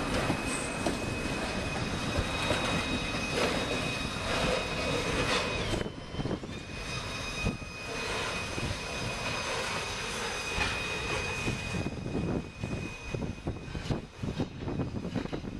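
Double-stack container train's well cars rolling past on steel wheels, with a steady high-pitched squeal from the wheels that drops out briefly about six seconds in and then returns. Clacks and knocks from the wheels over the track come more often in the last few seconds.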